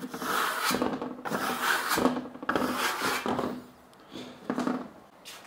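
Burnishing trowel pressed and scraped across freshly applied pink decorative plaster on a thin sample board, a series of rasping strokes, then a pause and one shorter stroke near the end. This is the burnishing stage, pressing the plaster smooth.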